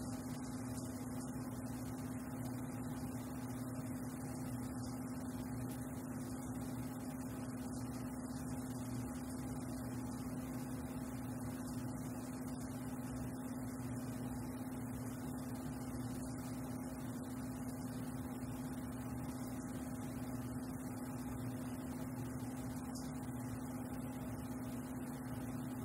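A steady, unchanging low hum with a faint hiss above it.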